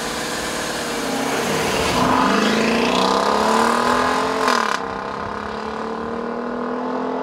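The 5.7-litre Hemi V8 of a Dodge Durango R/T accelerating hard past and away, its revs climbing and then dropping at the 8-speed automatic's upshifts, the second shift about four and a half seconds in. It is quieter after that shift as the SUV pulls away.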